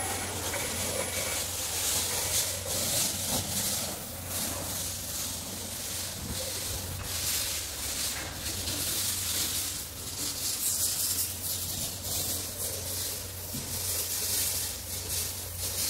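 Airless paint sprayer spraying from its gun: a steady high hiss that swells and eases every second or so, over a low hum from the pump motor, while the spray pressure is being raised.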